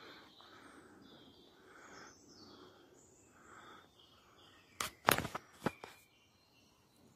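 Woodland birds calling faintly over soft, evenly spaced footsteps on the leafy forest floor. About five seconds in there is a brief cluster of loud knocks and crackles.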